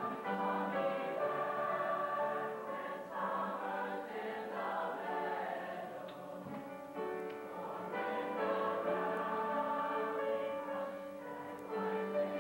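Mixed-voice high school choir singing in harmony, holding long chords that shift from one to the next, heard through an old VHS tape recording with a dull top end.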